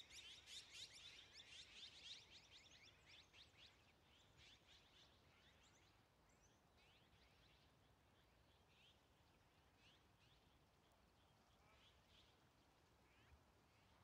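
A flock of azure-winged magpies calling: a dense run of quick, high calls that thins out over the first three seconds or so, then scattered single calls, all faint.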